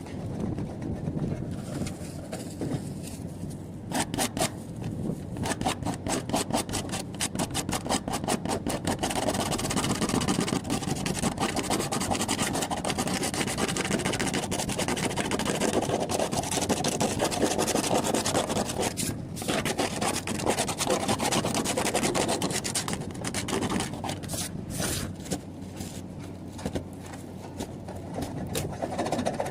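Scraping in quick repeated strokes that run together into continuous rasping, with a short break a little past halfway. It is typical of a hand tool working a surface during a roof-to-wall repair.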